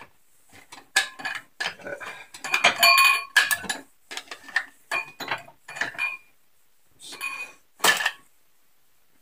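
Kitchen knife being fumbled out of a wooden knife block: an irregular clatter of clacks and clinks of metal against wood, some ringing briefly.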